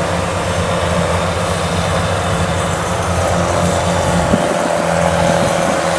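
Kubota rice combine harvester's diesel engine running steadily at a constant speed.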